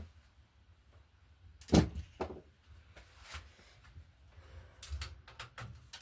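A few separate knocks and clunks, the loudest about two seconds in, then a run of lighter clicks near the end.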